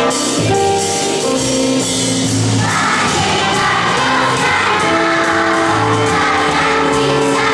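A large choir of children and women singing a Catalan song in long held notes that change every second or so, over a low sustained accompaniment.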